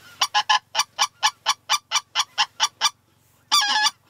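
A waterfowl call blown close by in the blind: a fast, even run of about fourteen short, loud notes, then a pause and one longer note that wavers in pitch.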